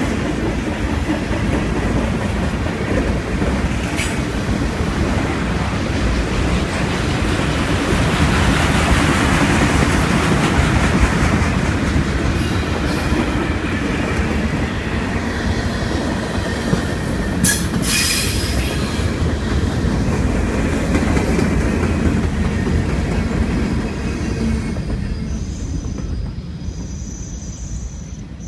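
Freight cars rolling past close by: a steady rumble and rattle of wheels on rail, with brief high-pitched wheel squeals about four seconds in and again around eighteen seconds. The sound fades away near the end as the last car passes.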